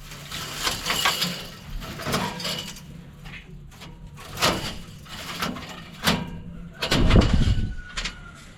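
Irregular knocks, clanks and rattles of hand work on a combine's metal parts, the loudest about four and a half, six and seven seconds in.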